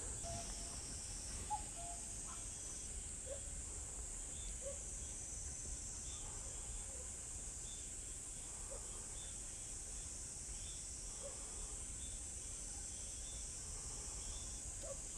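Insects singing on a summer night, a steady high-pitched hum. Faint short chirps are scattered through it.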